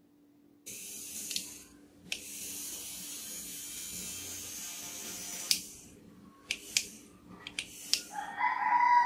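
Small battery-powered motor of a toy bubble gun whirring as it is switched on: a short run of about a second, then a steady run of about three and a half seconds that cuts off. Several sharp plastic clicks and taps follow.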